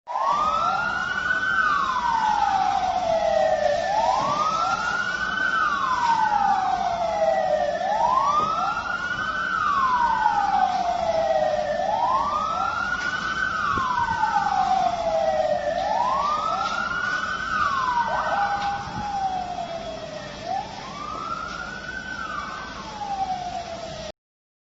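Emergency vehicle siren wailing: a tone that climbs and falls slowly about every four seconds, with a second, slightly offset wail layered over it. It cuts off suddenly near the end.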